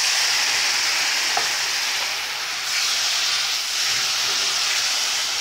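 Loud, steady sizzling of hot oil with fried onions and ground spices just after a splash of water is added to the pan, the water flashing to steam as the mixture is stirred with a silicone spatula.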